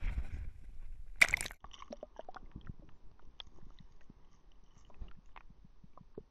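A GoPro camera plunges into the sea with a short, loud splash about a second in, after the rush of wind on the open microphone. Then comes the muffled quiet of the camera underwater, with scattered faint clicks and ticks.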